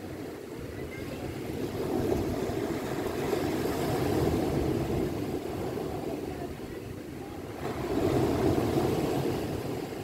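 Sea waves breaking and washing up onto a beach of rounded stones, in two surges: one building to a peak about four seconds in, another rising about eight seconds in.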